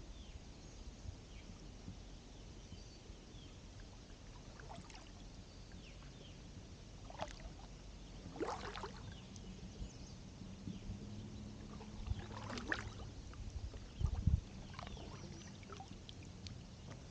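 Kayak paddle strokes in calm water: a double-bladed paddle dips and pulls, with a splash and drip from the blades every few seconds. A couple of low thumps come near the end.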